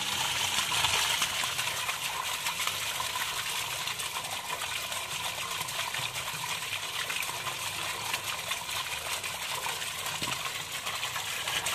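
Backed-up sewage gushing steadily out of the open inspection opening of a blocked PVC sewer stack and splashing down: the water held upstream of the blockage draining out under pressure.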